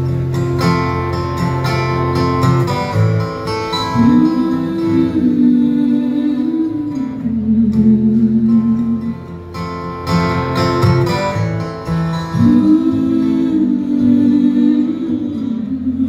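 Live acoustic guitar strummed steadily under a woman's singing voice, which twice rises into long held notes that slide down in pitch.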